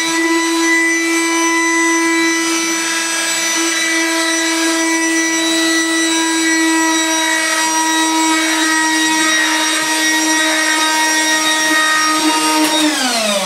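Vax Supabroom cordless electric floor sweeper running, its battery motor and brush roll giving a steady whine while it sweeps porridge oats off a laminate floor. The whine winds down in pitch near the end.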